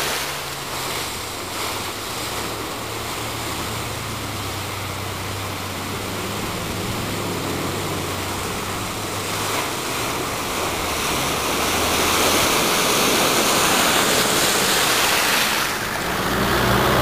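A Toyota Hilux 4x4 pickup's engine running as it wades through a deep muddy pool, with water sloshing and splashing around the wheels. The splashing grows louder in the second half. Near the end it gives way to an engine labouring as a 4x4 climbs a dirt bank.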